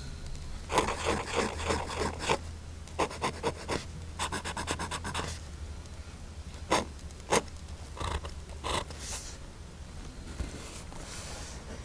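Waterman's 52 fountain pen nib scratching on paper, written in several quick runs of looping and zigzag strokes, then a few single strokes. The nib has marked feedback and is almost scratchy in some directions, which the restorer thinks comes from tipping material not balanced between the two tines.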